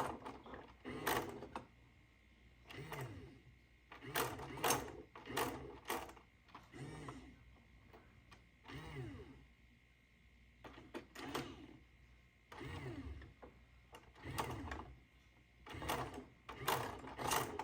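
Toy electronic claw crane game's small motors and mechanism running in short bursts, with sharp clicks, stopping and starting every second or two.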